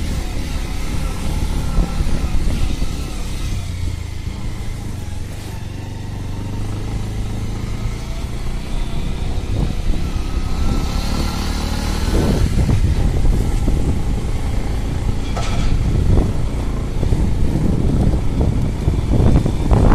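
A 150 cc motorcycle engine running at low road speed on a rough dirt track. From about twelve seconds in, the sound turns uneven, with irregular low rumbling surges.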